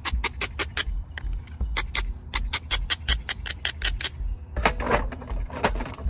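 Rapid runs of sharp, ringing taps on stone, about four a second with a couple of short pauses: a biface being struck during flint knapping.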